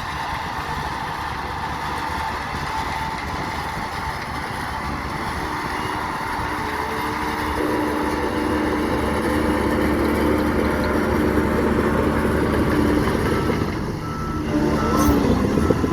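Radio-controlled model construction trucks running, their engine sound grows louder about halfway through, and shortly before the end a reversing beeper starts a series of short evenly spaced beeps.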